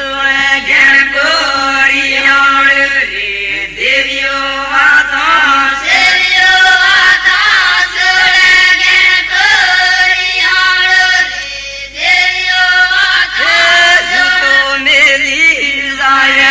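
People chanting a devotional folk song, loud and close, with long held notes and a wavering melody.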